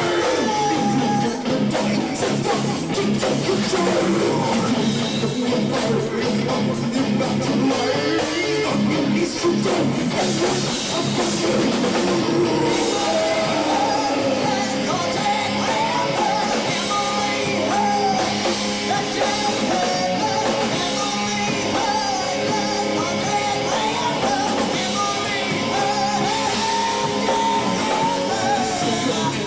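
Rock band playing a heavy, guitar-driven song with drum kit and singing; a wavering melody line comes in about halfway through.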